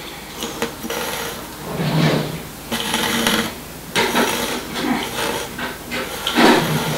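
Small wooden pyramid-shaped game pieces being picked up, moved and set back down on the table, giving a string of light clicks, knocks and scrapes.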